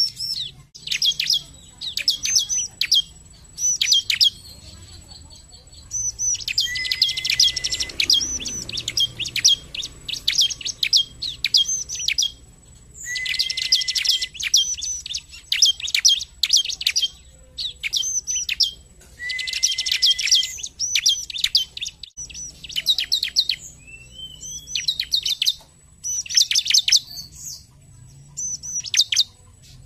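Bar-winged prinia (ciblek) singing: rapid runs of sharp, high chirps in phrases every few seconds, three of them denser and each carrying a short, steady lower note.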